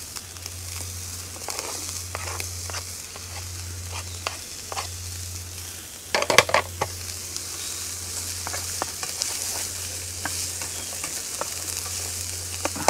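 Diced bacon frying in a hot pan on a gas camping stove, a steady sizzle over a low hum. About six seconds in, a burst of louder crackling as sliced mushrooms are dropped into the fat. After that come scattered taps and scrapes of a wooden spatula stirring the pan.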